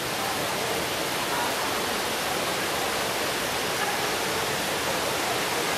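Trevi Fountain's cascading water rushing, a steady even wash of noise.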